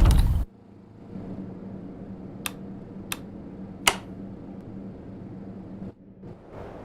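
Household air conditioner running with a steady hum. A loud rushing noise cuts off just after the start, and three sharp clicks come in the middle.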